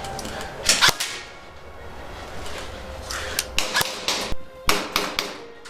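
Airsoft guns firing: irregular sharp cracks, a pair about a second in and a quicker cluster in the second half, each with a short echo.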